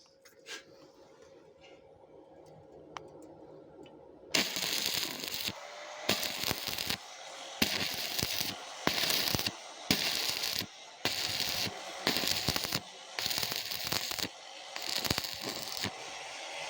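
Electric arc welding crackling in short repeated runs of about a second each, starting a few seconds in, over a faint steady hum.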